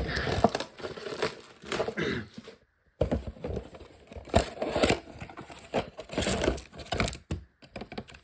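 Plastic and foil packaging crinkling and tearing as a box of Pokémon booster packs is opened and handled, in irregular rustling bursts with a brief sudden break about three seconds in.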